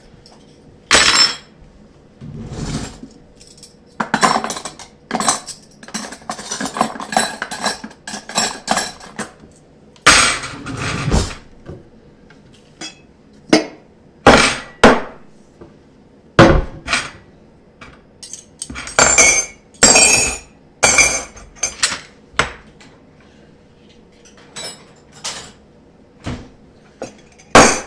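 Dishes and cutlery clattering as a table is set: plates and bowls knocked down onto the table and utensils clinking, in a string of sharp separate knocks with denser bursts of clatter.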